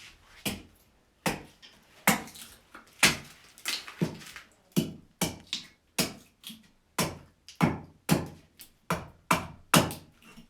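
Axe chopping a wooden cup blank on a chopping block: a steady run of sharp strikes, about two a second.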